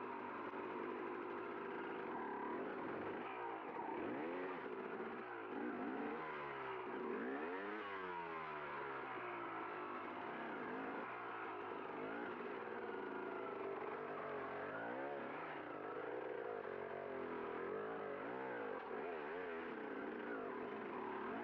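Enduro dirt bike engine revving up and down over and over, the throttle opened and rolled off every second or two.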